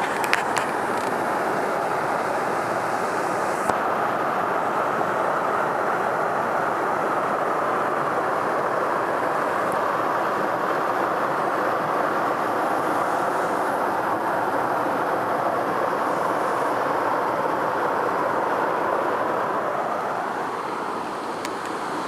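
Steady rush of water from a small waterfall cascading into a pool.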